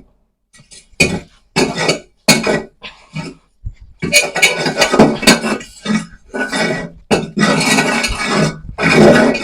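Lumps of charcoal clinking and rattling against each other as they are mixed with sawdust and wood shavings. The clatter comes in irregular bursts, sparse at first and denser from about four seconds in.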